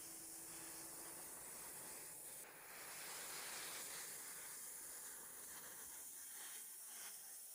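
Waterfall splashing down a rock face, a steady hiss of falling water that grows a little louder about two and a half seconds in.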